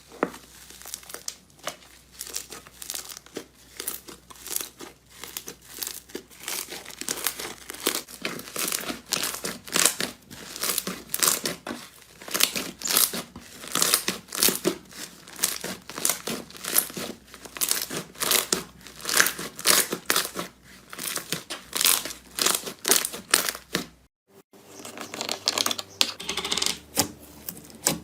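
Slime being squeezed and pressed by hand: a dense run of sharp crackling clicks, with a short pause about 24 seconds in before the clicking starts again.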